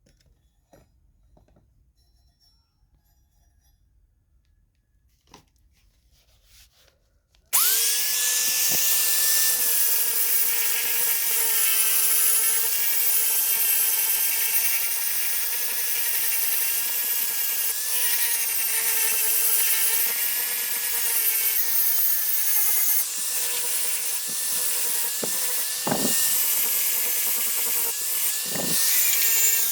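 Near silence with a few faint clicks, then an electric power tool starts abruptly about a quarter of the way in and runs steadily, with a high whine and hiss.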